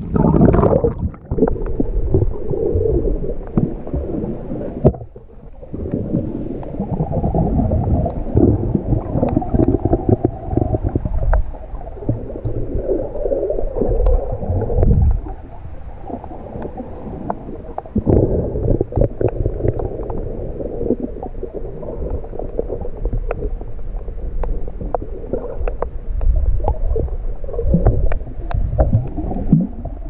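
Muffled underwater rumbling and gurgling of moving water, picked up by a GoPro in its waterproof housing while submerged. It surges and eases unevenly, with a brief quieter dip about five seconds in.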